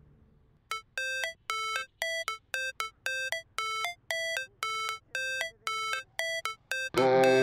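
Background music: after a moment of near silence, a quick run of short electronic notes plays, about three a second and changing pitch. Fuller music comes in near the end.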